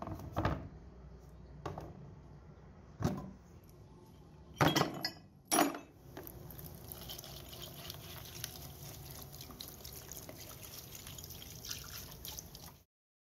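Rusty metal juicer parts set down one by one in a plastic tub, with about five clunks over the first six seconds. Then a liquid is poured steadily over the parts in the tub, splashing, until the sound cuts off suddenly near the end.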